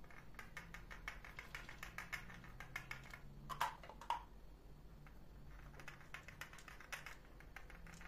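Faint, quick clicking of a silicone pastry brush dabbing egg yolk onto soft raw şekerpare dough balls, with two louder knocks about three and a half and four seconds in.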